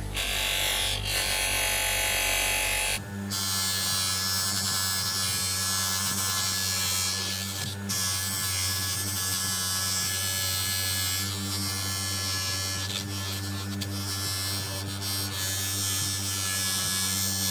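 Small electric bench polisher running steadily, its motor humming and buzzing while a brass clock-winder key is held against its spinning polishing wheel. About three seconds in the sound turns hissier and stays so.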